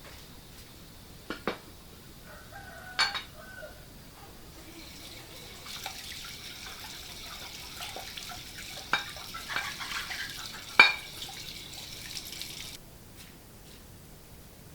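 Water running for about eight seconds, starting about five seconds in and stopping abruptly, with a few sharp clinks or knocks, the loudest near the end.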